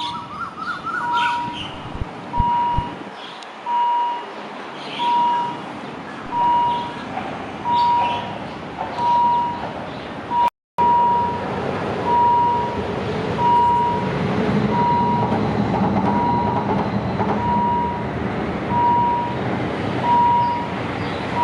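Kiha 183 diesel railcar moving off, its engine and running noise growing louder from about six seconds in. Over it an electronic beep sounds about once a second throughout.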